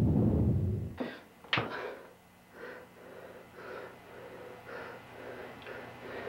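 A low rumbling noise that stops about a second in, a sharp click, then a man breathing heavily in short gasps about once a second.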